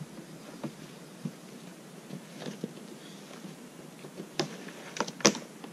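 Camping gear being handled on a kayak: scattered soft knocks and rustles, with a few sharper clicks and knocks in the last second and a half.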